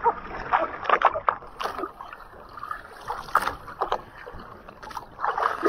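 Water splashing and slapping against a boat's hull as a hooked nurse shark thrashes at the surface alongside, in irregular short splashes.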